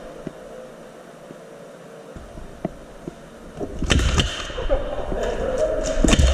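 Fairly quiet at first, then from about four seconds in, a quick, uneven run of sharp clicks and low thumps from players moving in an indoor airsoft game.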